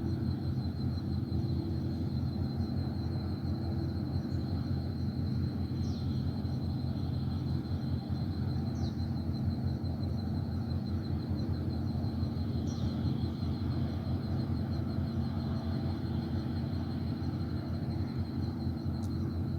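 Outdoor ambience with a steady low drone and an insect's continuous high, rapidly pulsing trill, with a few short bird chirps scattered through.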